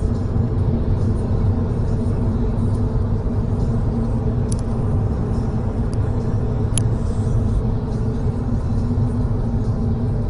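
Steady road and engine rumble of a car driving at highway speed, heard inside the cabin, with a few faint short ticks near the middle.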